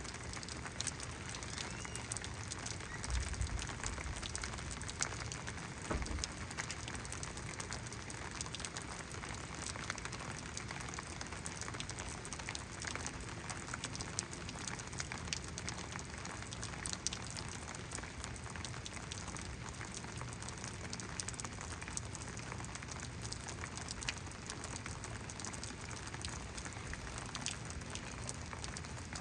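Rainstorm: rain falling steadily, with many separate drops ticking close by. A couple of brief low thumps come about three and six seconds in.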